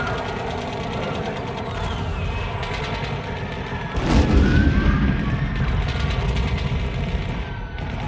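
A film score with war sound effects: rapid gunfire-like crackling runs under the music, and a loud explosion boom about four seconds in leaves a low rumble that slowly dies away.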